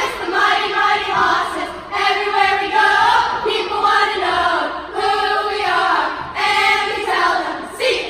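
A group of girls singing a team chant together in unison, in three phrases of about three seconds each with short breaks between.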